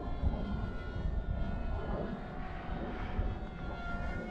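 Electric motor and propeller of a small radio-controlled model plane, a 3D-printed F-35C running E-flite Ultrix 600 electronics, whining in flight. The whine is steady in pitch, weaker in the middle and stronger again near the end. Under it is a low rumble of wind on the microphone.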